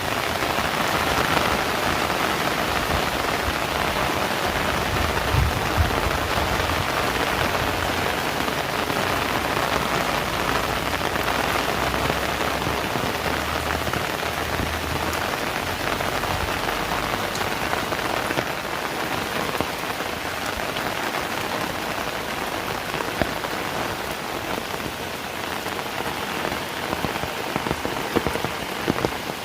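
Heavy rain falling steadily, a dense even hiss of drops with scattered sharper drip ticks. A low rumble runs underneath through the middle of the stretch.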